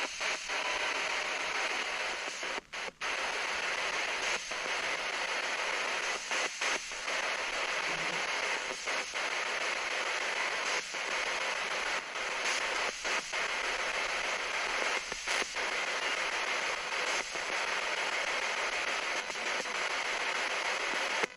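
Spirit box sweeping through radio frequencies: a steady hiss of static, cut by brief dropouts every second or two.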